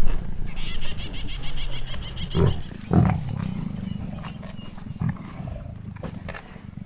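Lions growling low and continuously while feeding on a Cape buffalo, with two louder growls about two and a half and three seconds in.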